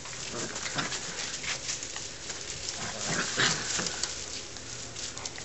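Springer spaniel puppies scuffling and play-wrestling in a fabric play tunnel: irregular rustles, scrabbles and little knocks throughout.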